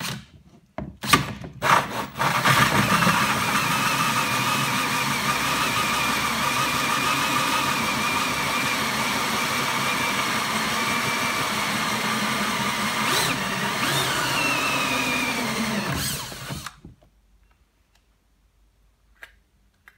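Electric drill running a 64 mm bi-metal hole saw through the plastic wall of an ammo crate at reduced speed. A few short trigger blips come in the first two seconds, then a steady whine of about fourteen seconds that drops in pitch and winds down once the saw is through.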